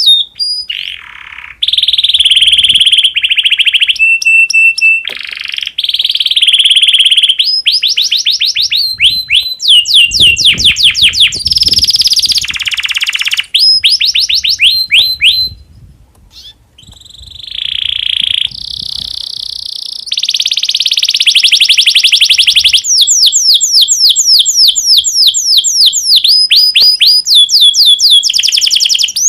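Male domestic canary in breeding condition singing a long, loud song of rapid trills and rolls: fast runs of repeated downward-sweeping whistled notes, with a short break about halfway through.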